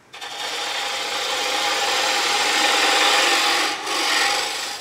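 A turning tool cutting the shoulder of a spinning cherry blank on a wood lathe: a steady, hissing scrape of the edge in the wood that starts abruptly and briefly dips about four seconds in before carrying on.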